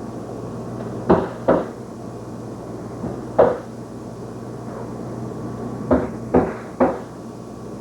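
Six sharp knocks at uneven intervals, two close together about a second in and three near the end, over a steady low hum.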